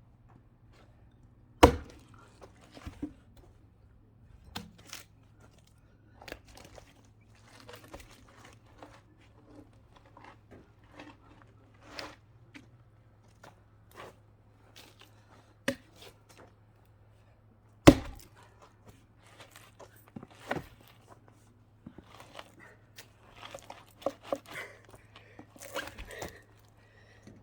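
Axe blows splitting a chainsaw-cut log for firewood: two heavy strikes, about 2 seconds and 18 seconds in, with lighter knocks and clatter of wood between.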